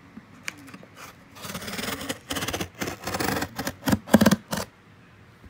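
Scissors slitting and tearing open the packing tape on a cardboard shipping box: a few light clicks, then rasping scrapes and rips in uneven strokes, the loudest about four seconds in.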